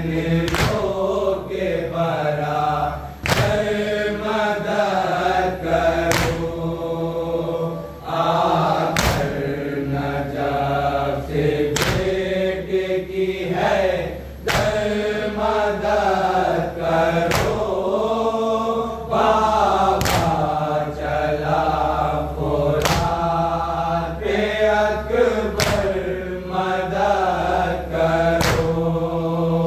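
Men's voices chanting an Urdu noha (a Muharram lament for Abbas) together, with a sharp slap about every three seconds keeping the beat, the rhythm of matam chest-beating.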